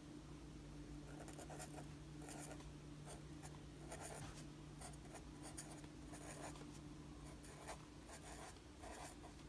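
Faint scratching of a Zebra Mildliner marker tip on planner paper as words are written, in short irregular strokes, over a steady low hum.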